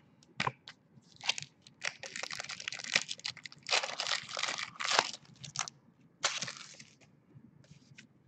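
Foil wrapper of a 2014 Certified football card pack crinkling and tearing open by hand: a run of crackling rustles from about one to seven seconds in, with a few light clicks around them.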